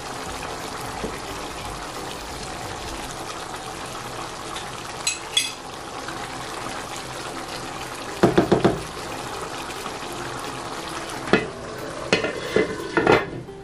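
Pot of rice in palm-nut (banga) sauce simmering with a steady bubbling hiss, with a wooden spatula stirring and knocking against the pot and a few clicks of a spoon. Near the end, a glass pot lid clatters into place on the pot.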